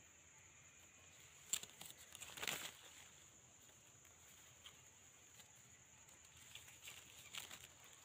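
Near silence outdoors: a steady faint high hiss, broken by a sharp click about a second and a half in, a brief rustle about a second later, and a few faint ticks near the end.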